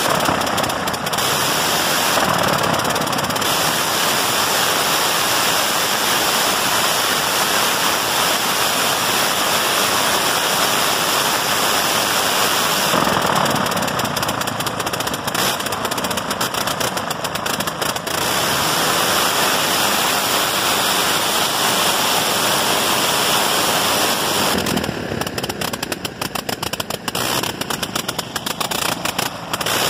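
1918 Gnome rotary aircraft engine running on a test stand with its propeller turning, a loud rapid firing. About halfway and again near the end the firing turns choppy, breaking into separate sharp cracks, and the second time it is quieter.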